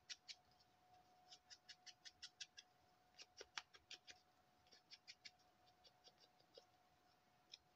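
Faint, irregular little clicks and crinkles of paper card and embellishments being handled, coming in short runs, over a faint steady tone.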